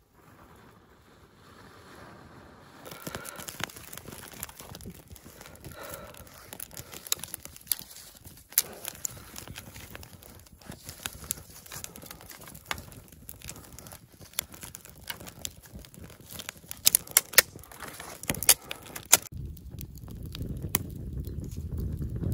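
Dry birch bark and kindling crackling, snapping and tearing, with irregular sharp cracks that are loudest about three quarters of the way through. Near the end it switches abruptly to a low rumble.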